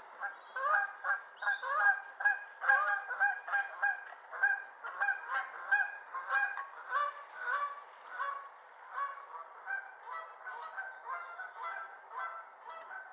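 A flock of Canada geese honking, a continuous run of overlapping calls several times a second that grows fainter toward the end.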